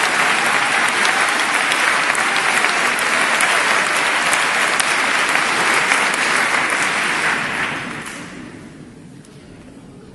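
Audience applauding, then dying away about eight seconds in.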